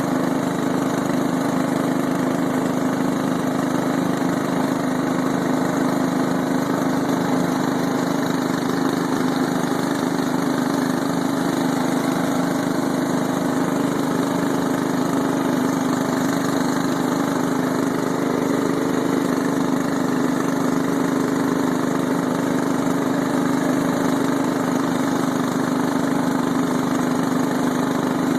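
Scotts/John Deere S1742 lawn tractor's 17 hp Briggs & Stratton engine running steadily, with an even, unchanging engine note.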